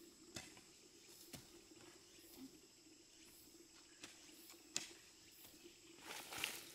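Near silence with a few faint, scattered clicks and taps, and a soft rustle near the end.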